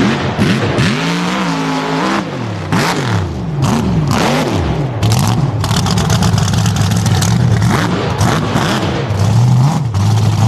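Off-road vehicle engine revving hard, its pitch rising and falling again and again, with clattering and knocks throughout.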